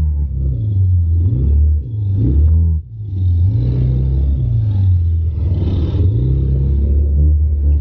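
ATV engines running and revving, the pitch rising and falling again and again as the throttle is worked, with a brief drop about three seconds in.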